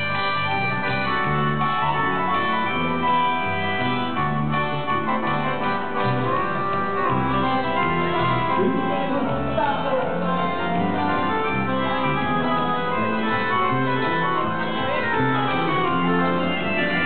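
Live band music led by a keyboard holding organ-like sustained chords.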